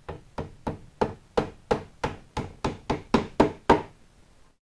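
Claw hammer driving small nails into the back panel of a flat-pack desk: a run of about thirteen quick, even taps, about three a second, the last few the loudest, stopping just before the end.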